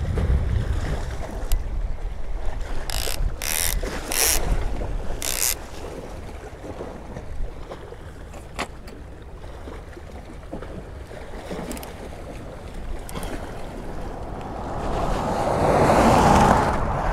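Wind buffeting the microphone, with four short, high-pitched rasps about three to five seconds in as an old conventional fishing reel is handled. Near the end a pickup truck drives past fast, swelling to the loudest sound and then fading.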